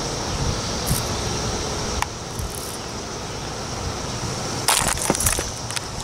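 Chorus of periodical cicadas, a steady high-pitched drone, over a low rumble like wind or distant traffic. A sharp click comes about two seconds in, and a brief burst of rustling and crackling near the end.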